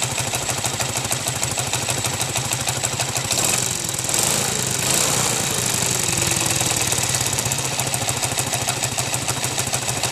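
Small motorcycle engine idling with a rapid, steady tá-tá-tá knocking clatter from inside the engine, swelling briefly about four seconds in and then settling back with a falling pitch. The knock appeared after the cylinder head was rebuilt; mechanics have variously blamed the piston, the connecting rod or the crankshaft, some part knocking inside the engine.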